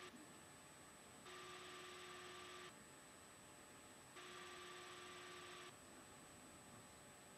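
Near silence: a faint electrical hum with hiss that cuts in and out in turns of about a second and a half, over a steady faint high whine.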